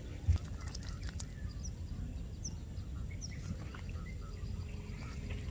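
Outdoor ambience with a steady low rumble, a single knock about a third of a second in, and a few short high chirps from a small bird spaced a little under a second apart.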